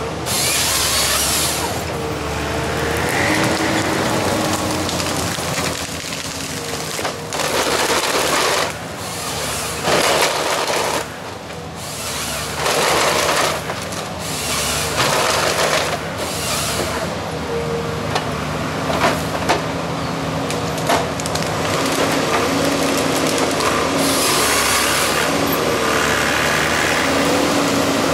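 Valmet 911.3 harvester's diesel engine running steadily, its note shifting with the hydraulic load, while the SP 561 LF harvester head works trees. Repeated bursts of sawing and of wood cracking and scraping come every few seconds as stems are cut, fed through the rollers and stripped of branches.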